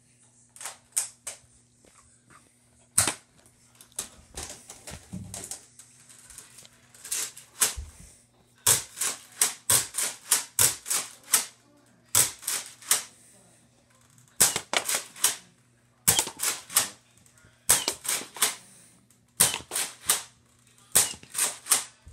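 Bursts of rapid sharp clicks, several to a burst, coming every second or two, with scattered single clicks before them and a faint steady hum underneath.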